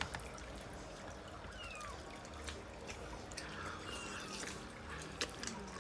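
Close-up eating sounds: wet chewing and mouth noises with scattered small clicks of a fork and fingers on a plate. A faint, short, high falling chirp comes twice, about two seconds and four seconds in.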